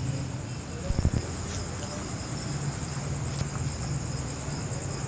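Crickets chirping in a steady, continuous high trill over a low hum, with a few low thumps about a second in.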